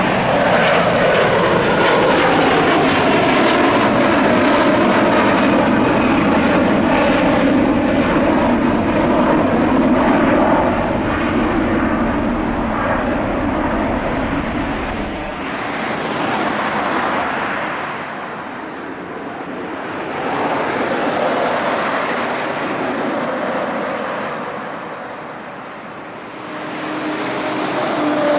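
Airbus A330-300's Rolls-Royce Trent 700 jet engines at climb power just after takeoff: a loud roar with whining tones that fall in pitch as it passes. About halfway through, the deep rumble drops out suddenly, leaving a roar that swells and fades as the airliner climbs away.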